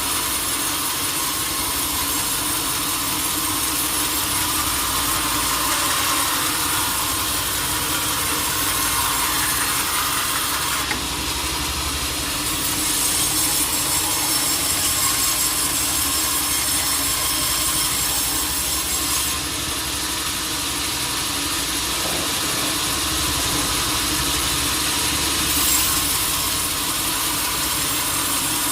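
Sawmill saw running and cutting through a large teak log, a steady hissing cut over the machine's motor, with the pitch of the cut changing a few times.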